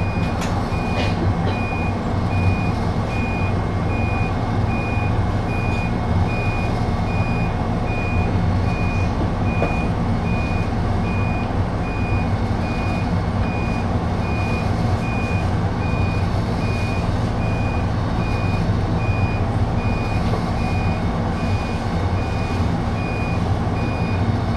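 Standing electric train heard from the driver's cab: a steady hum of its onboard equipment with several low tones, and a high electronic beep repeating evenly throughout.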